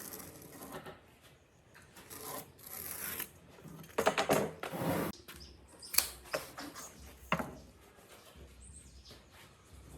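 Hand work on wood: irregular rubbing and scraping strokes, heaviest about four seconds in, with a couple of sharp knocks near the middle.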